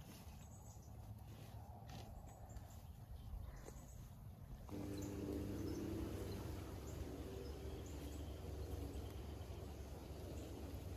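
Faint outdoor ambience: a low wind rumble on the microphone. About five seconds in, a faint steady hum joins it.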